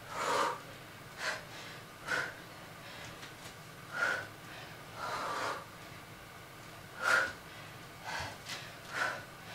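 A person breathing hard from exertion during push-up reps: short, forceful breaths through the nose and mouth, about one a second and irregularly spaced.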